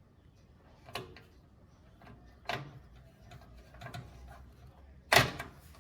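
Light clicks and knocks of a screwdriver and small screws against the metal PC case and motherboard as the motherboard is being screwed in. Three small knocks come about a second and a half apart, then a louder knock near the end.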